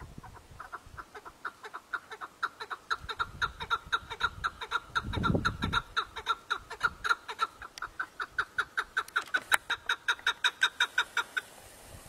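Chukar partridges calling: a fast, rhythmic run of clucking chuck notes, several a second, growing louder and stopping shortly before the end.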